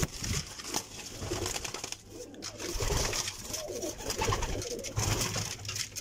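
Domestic pigeons cooing in a loft, in repeated low pulsing calls, with light rustling and knocking from handling near the shelves.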